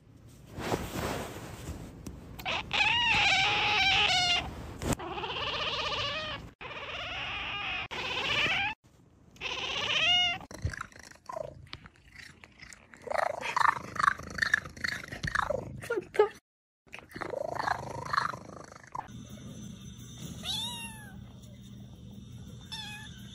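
Cats meowing and yowling in a run of short clips: long calls that rise and fall in pitch, broken by sudden cuts. Near the end a kitten gives two short high mews that fall in pitch, over a low steady hum.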